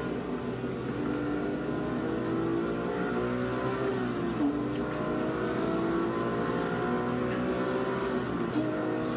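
Porsche 911 GT3 (997) flat-six engine heard from inside the cabin, pulling hard with its pitch climbing. The revs drop sharply about four and a half seconds in and again near the end as the driver shifts up through the manual gearbox, then climb again.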